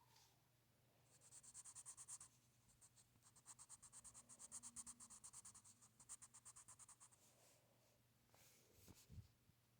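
Faint scribbling of a drawing tool on paper: fast back-and-forth strokes, about nine a second, in a short run and then a longer one of nearly four seconds, as when shading or filling in a drawing. A brief soft bump comes near the end.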